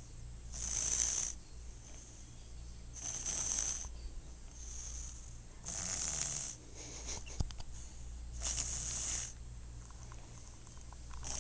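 Snoring: hissy, raspy in-breaths about every two and a half seconds, with fainter breaths between, over a low steady hum.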